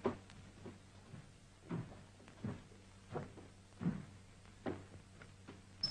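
Slow footsteps thudding softly on boards, about ten of them at a fairly even pace, with a faint steady hum from the old film soundtrack underneath.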